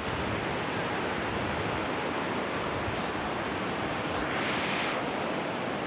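Steady wash of sea surf and breeze on the beach, an even hiss with a brief louder patch a little past four seconds in.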